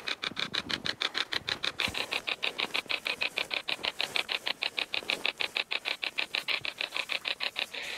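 Hack shack spirit box radio sweeping through the stations: static chopped into rapid, even pulses, about six a second.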